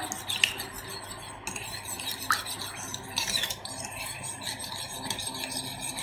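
Metal spoon stirring milk in a ceramic bowl, scraping the bottom and clinking lightly against the sides at irregular moments, dissolving powdered sugar.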